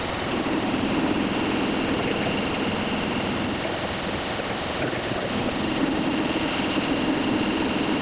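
Metal lathe running with a steady high whine while its cutting tool turns a spinning workpiece, the cutting noise swelling near the start and again in the last few seconds.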